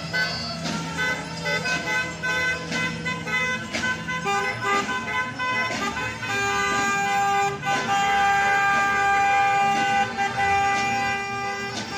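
Car horns honking from a line of passing cars over traffic noise. About halfway through, one horn is held in a long steady blast lasting several seconds.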